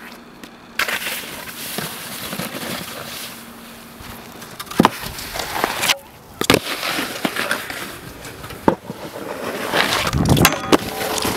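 Snowskate decks in use on stair rails and ledges: scraping and sliding with several sharp knocks and slaps as the deck pops and lands.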